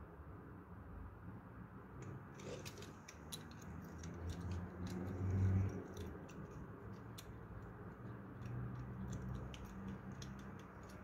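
Scattered light clicks and taps of a plastic digital caliper's jaws sliding and closing on a small die-cast toy truck held in the hands, with a dull low bump about halfway through.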